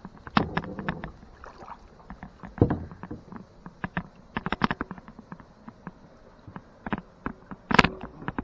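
Kayak paddling: paddle blades dipping and splashing in shallow water, with many sharp knocks of the paddle against the hull. The loudest strokes come a little after two seconds in and near the end.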